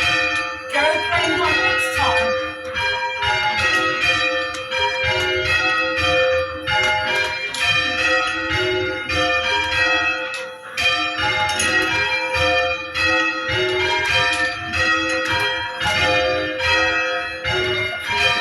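A ring of church tower bells being rung in change ringing: bell after bell struck in a steady stream, several strikes a second, the tones overlapping as each one rings on.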